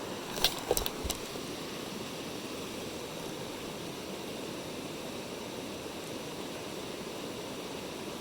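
Mountain stream flowing steadily, with three short sharp clicks within the first second or so.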